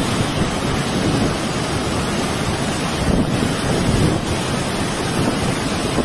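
Fast-flowing muddy floodwater rushing in a torrent: a loud, steady roar with no let-up.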